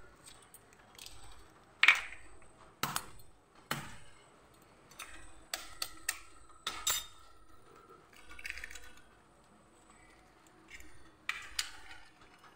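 Eggs being knocked and cracked into a steel bowl: a scatter of short, sharp clinks, about eight in all, the loudest about two seconds in and another pair near the end.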